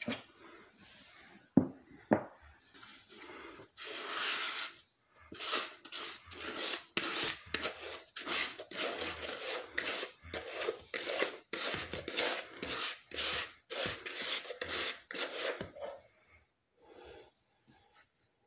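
Two sharp knocks near the start, then rhythmic rubbing and scraping close to the microphone, about one stroke a second, for roughly twelve seconds before it dies away.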